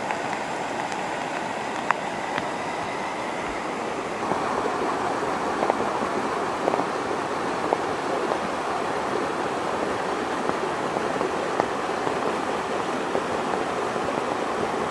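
Heavy rain together with a rain-swollen, muddy stream rushing over a small rocky cascade: a steady rush of water that grows a little louder about four seconds in, with a few sharp taps of drops.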